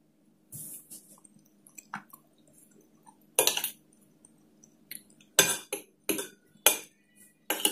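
Metal fork and spoon clinking and scraping against a ceramic plate as food is cut. Quiet at first, then one scrape about three and a half seconds in, followed by a quick run of five or so sharp clinks near the end.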